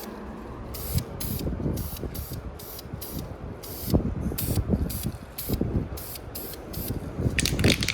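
Aerosol can of Krylon Industrial Tough Color spray paint being sprayed in quick short bursts, about three hisses a second, laying a coat on a brake caliper.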